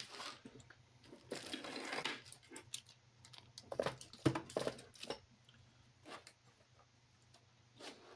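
Small items being handled and rummaged through on a workbench: scattered clicks and taps, with a stretch of rustling, like a plastic bag, about a second in.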